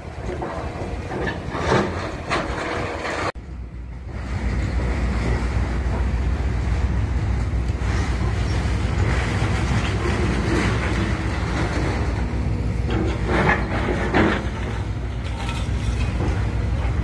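Heavy demolition machinery running with a steady low engine rumble, with scattered knocks and clatter from the work. There is a brief break about three seconds in.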